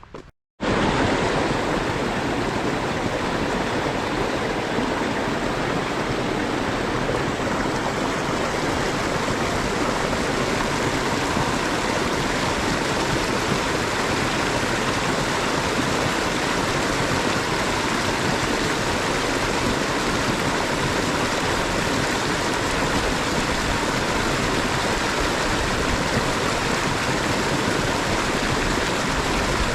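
A creek swollen by heavy rain, its water rushing in a steady, even flow that starts just after a brief cut about half a second in.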